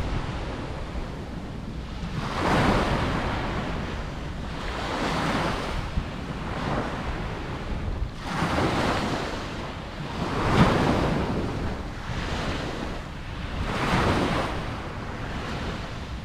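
Ocean waves breaking on a beach. The surf swells and recedes about every two to three seconds over a steady low rumble of wind on the microphone.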